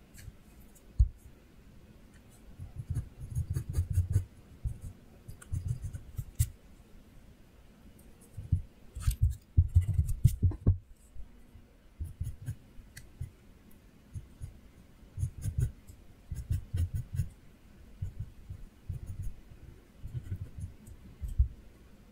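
Pencil drawing on paper: short strokes of scratching and rubbing come in irregular clusters, with a few faint clicks.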